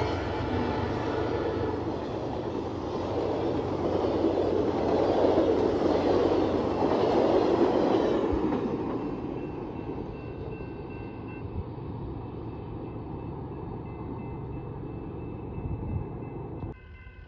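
Stainless-steel passenger cars of a high-speed office car special rolling past: steady wheel-on-rail noise, loudest midway, then fading as the train moves off, with a few sharp clicks. The sound drops off suddenly near the end.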